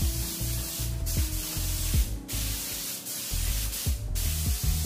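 Gravity-feed paint spray gun hissing as it sprays paint onto a truck grille, with a few short breaks between passes, over background music with a beat.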